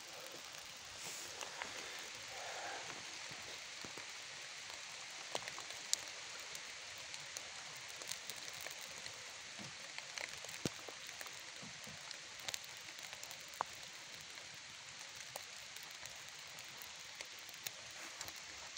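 Steady patter of light rain, with scattered sharp pops and crackles from a small fire of birch bark and thin twigs just catching in the wet.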